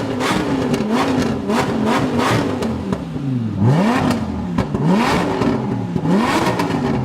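Lamborghini Huracán's V10 with a customised exhaust, revved up and down over and over, its pitch dipping low about halfway through before climbing sharply again. Sharp pops and crackles from the exhaust run through the revs.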